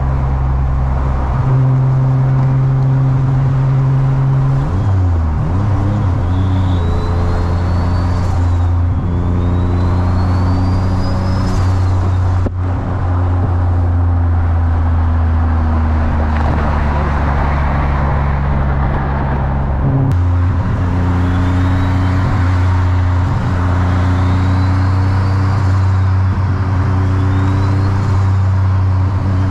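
Turbocharged Infiniti G35's VQ35DE V6 heard from inside the cabin while driving on the freeway: a steady engine drone, its pitch shifting a few times. A faint high turbo whistle rises and falls in pitch again and again, once about a third of the way in and again over the last third.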